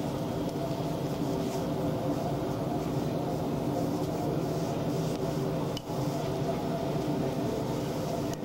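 A steady low hum with several steady tones, unchanging, broken only by a brief dropout with a click about six seconds in.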